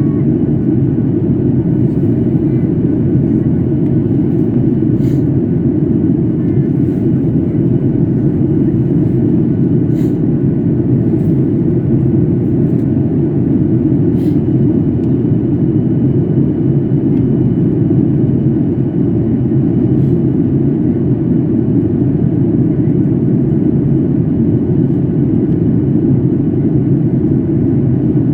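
Steady low rumble of airliner cabin noise, engines and rushing air, heard from a passenger seat as the plane descends to land. A few faint clicks sit above it.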